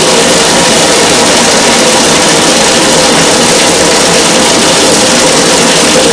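Bathtub faucet running hard, a loud steady rush of water pouring into a tub of empty aluminium cans.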